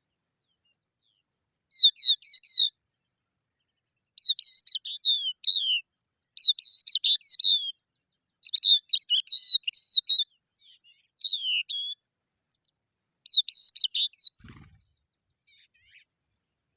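Small bird chirping in six short bouts of quick, high notes separated by pauses, with a faint low thump after the last bout.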